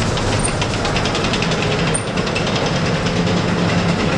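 Ford Maultier half-track's V8 engine running with a steady low drone, while its steel tracks clatter in a quick, even rhythm as the vehicle moves.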